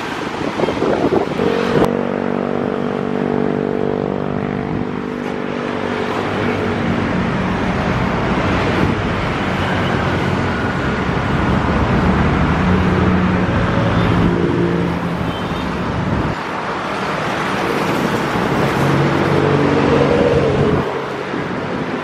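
Motor traffic passing close by: engines of several vehicles hum in and fade out one after another over a steady background of traffic noise.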